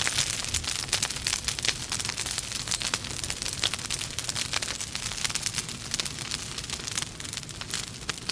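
Wood fire burning in a fireplace: logs crackling and popping continuously over a soft hiss, with many sharp snaps.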